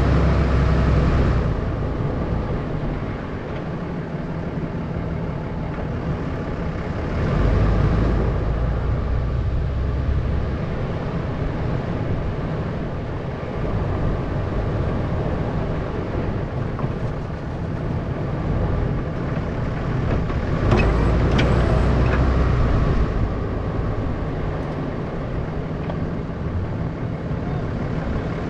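Snowplow pickup truck's engine running steadily, growing louder three times for a few seconds each. A few sharp clanks come about three-quarters of the way through.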